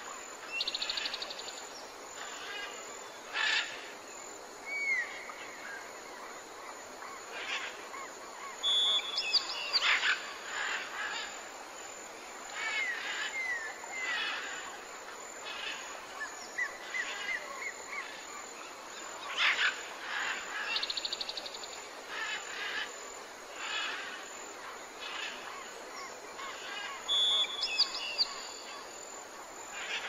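Forest ambience of many birds calling: short upturned whistles, buzzy rattling notes and sharp chirps over a steady background hiss.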